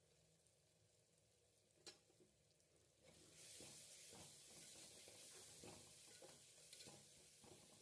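Faint sizzling of chicken bhaji frying in a pan, starting about three seconds in, with short knocks and scrapes of a spoon stirring it. A single click comes just before.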